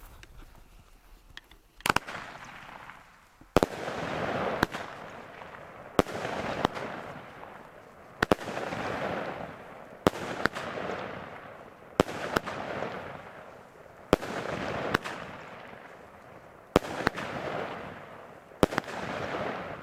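Argento Smaragd 25 mm ten-shot firework battery firing, starting about two seconds in, with a shot about every two seconds. Each shot is a sharp bang, then a rushing hiss as the gold-tailed shell climbs, then a second bang soon after as it bursts into a gold willow.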